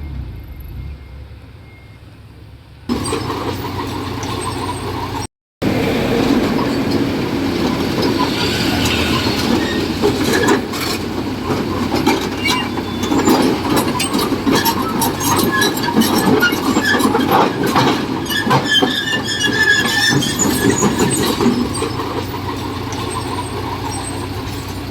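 Small D20P crawler bulldozer at work: the diesel engine runs steadily while the steel tracks clank and give short squeals. The sound jumps up sharply about three seconds in and cuts out briefly near five seconds.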